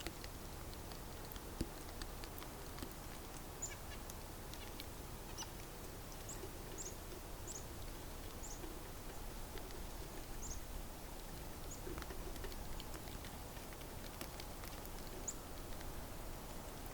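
Small birds giving thin, very high, short call notes, about a dozen scattered chirps, over a faint steady hiss with occasional light ticks.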